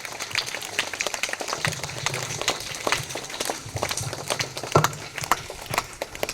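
Scattered hand clapping from an audience of children, uneven and patchy, with a low hum in the hall.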